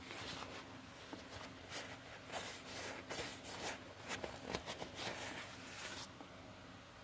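A hi-vis rain jacket being handled, with a run of short, irregular rustling and scuffing noises that stop about six seconds in.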